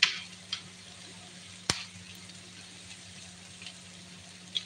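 Eggs being cracked into a frying pot: a few sharp taps and cracks, the loudest a single crack a little under two seconds in, over faint steady frying in the pot.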